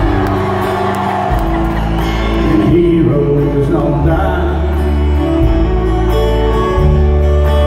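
Acoustic country band playing live in an arena: fiddle and acoustic guitars over steady low bass notes, with a man singing, picked up from among the crowd.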